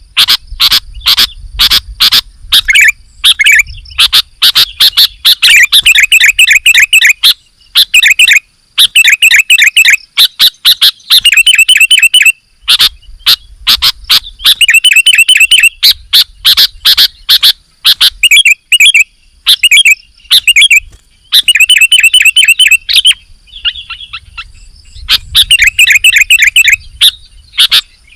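Sooty-headed bulbul (kutilang) singing loudly and busily: phrases of quick, sharp chirping notes in rapid runs, broken by short pauses.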